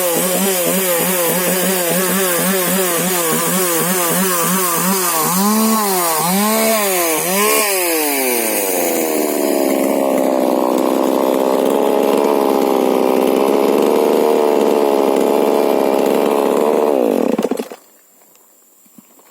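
Husqvarna 125 two-stroke chainsaw with a modified exhaust running, its engine pitch swinging up and down again and again. About eight seconds in it drops to a steady idle, and about seventeen seconds in the engine is switched off and stops suddenly.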